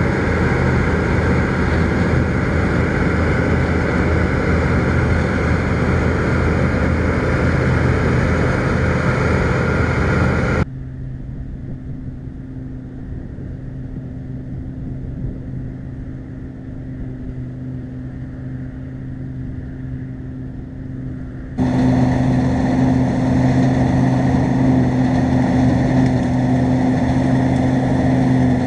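New Holland TX34 combine harvester running steadily under load while cutting winter barley, a loud engine hum mixed with the noise of the harvesting machinery. About ten seconds in the sound drops abruptly to a quieter, duller engine hum for about ten seconds, then jumps back to the full machine noise.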